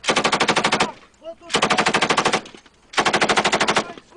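Belt-fed light machine gun fired from inside a vehicle's cabin in three short bursts of rapid, evenly spaced automatic fire, each under a second long, with brief pauses between them.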